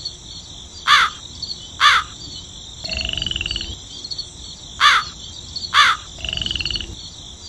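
Countryside ambience: crows cawing in pairs, each caw short and falling in pitch, with a frog giving a rapid pulsed croak between the pairs, over a steady high insect drone. The call, call, croak pattern happens twice.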